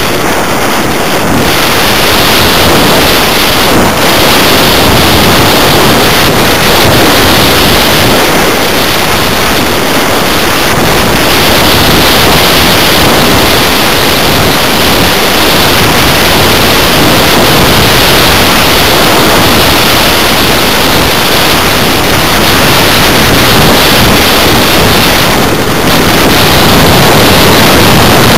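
Loud, steady rush of air buffeting the microphone of a camera riding on a 1/6-scale BAC IV model glider in flight, growing a little louder near the end.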